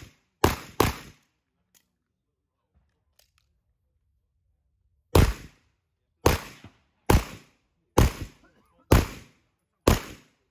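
Gunshots from a shooter firing a USPSA stage: two quick shots right at the start, a pause of about four seconds, then six single shots about a second apart.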